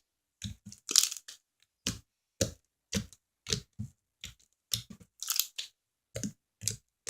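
Fluffy slime being squished and folded by hand, making short crackling, squelching bursts about twice a second.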